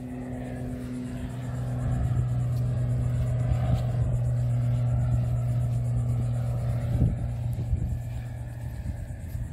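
An engine humming steadily at a low pitch, swelling about two seconds in and easing off near the end, with a single sharp click about seven seconds in.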